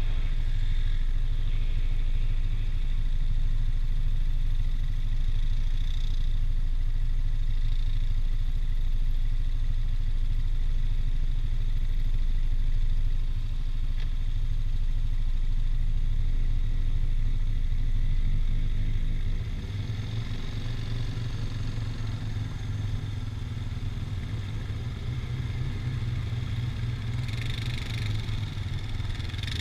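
ATV engine running while riding a dirt trail, with a steady low rumble and wind on the helmet-mounted microphone. About two-thirds of the way through it eases off to a lower, quieter running as the machine slows.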